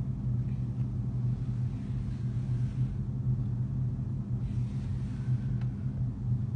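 Steady low mechanical hum, with a couple of faint ticks near the end.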